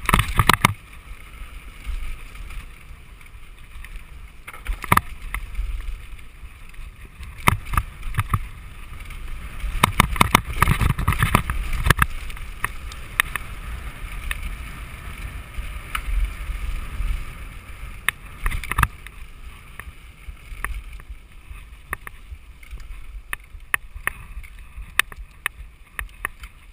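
Mountain bike riding down a rough, rocky dirt trail: a steady low rumble of tyres on the ground, with frequent sharp knocks and clatters from the bike over bumps, thickest a little before the middle and again about two thirds of the way in.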